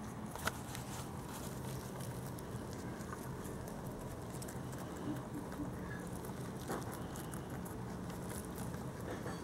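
A lop-eared rabbit chewing a leaf close to the microphone: a quick, irregular run of small crisp crunches.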